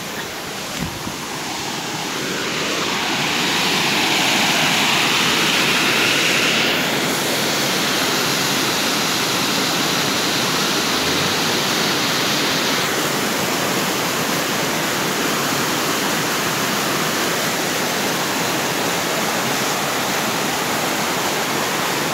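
Small waterfall pouring into a rocky pool: a steady rush of falling water that grows louder over the first few seconds, then holds.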